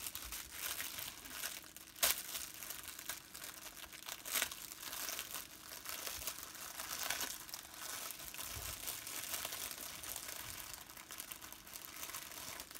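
Clear plastic wrapping crinkling and rustling as the protective film over a diamond painting canvas and bags of drills are handled, with sharper crackles about two seconds and about four seconds in.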